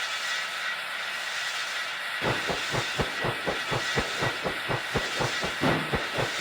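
Train running on its track: a steady hiss, and from about two seconds in a fast, regular clickety-clack of wheels over the rails, about five clacks a second.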